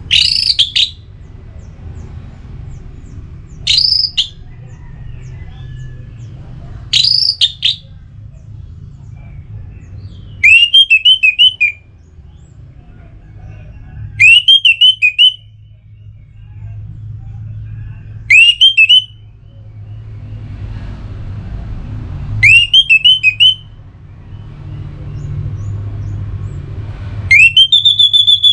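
Orange-headed thrush (anis merah) giving loud, clear whistled phrases every few seconds, calling out to a rival. The first few phrases are single upward-sweeping whistles. The later ones are quick runs of four or five rising notes. A steady low hum runs underneath.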